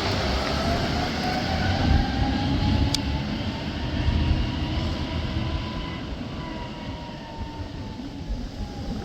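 Volvo A40G articulated hauler's diesel engine running with a heavy low rumble and a faint whine that rises slowly and then falls away, the sound easing off in the second half.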